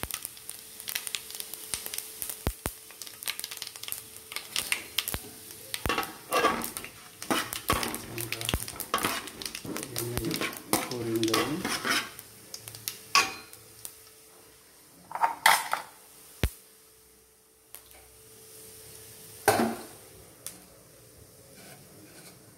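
Seeds crackling and sizzling as they fry in hot oil in a steel pan, with a spatula stirring and scraping against the metal. The crackle thins out later, and a few sharp knocks of utensils on steel stand out.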